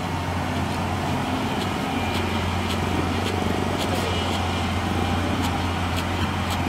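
Hyundai crawler excavator's diesel engine running steadily under hydraulic load as the machine swings its boom and raises a bucket of soil, a constant low drone, with scattered sharp clicks.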